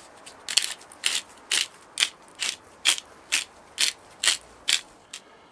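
Hand-twisted pepper mill grinding peppercorns, a dry ratcheting crunch with each twist, about two twists a second, ten or so in all, stopping near the end.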